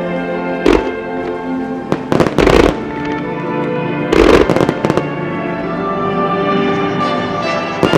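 Aerial firework shells bursting over steady music. There is a sharp bang a little under a second in, a cluster of bangs around two and a half seconds, another cluster around four and a half seconds, and one more at the very end.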